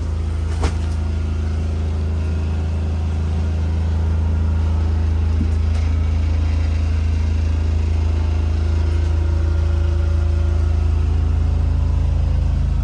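Motorhome's onboard generator running with a steady low hum; a single sharp click about half a second in.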